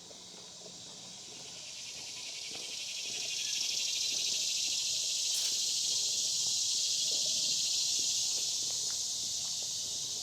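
A chorus of insects buzzing in a high, even drone that swells up over the first few seconds, then holds loud and steady.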